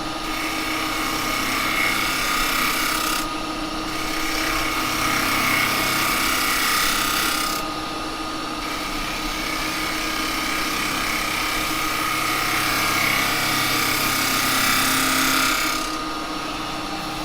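Wood lathe running with a steady hum while a carbide chisel cuts the spinning wet cherry, a scraping hiss in three long passes with short breaks about 3 and 8 seconds in, stopping a little before the end. The passes are truing up a piece that was out of round and bouncing against the tool.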